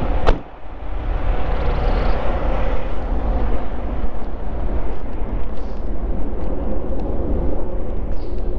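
Steady low rumble of idling semi-truck diesel engines, with a single sharp click just after the start.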